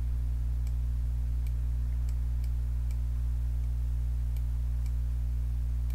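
A few faint, irregular computer mouse clicks as path nodes are selected and dragged, over a steady low hum.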